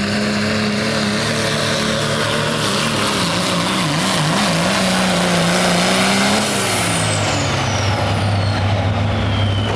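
Diesel Dodge Ram pickup pulling a sled at full throttle, its engine held at a steady high pitch that wavers briefly about four seconds in. About six and a half seconds in the throttle comes off and the engine drops to a low idle. A high whistle slides down in pitch as the turbo winds down.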